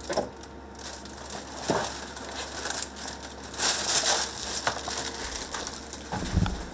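Thin plastic shopping bag rustling and crinkling as it is handled and carried, louder for a moment about four seconds in, with a few small clicks and a dull thump near the end.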